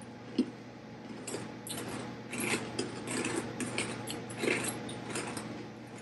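Crunching of crunchy mochi rice nuggets (puffed rice crackers) being chewed: irregular crisp crackles, thickest in the middle, over a faint steady hum.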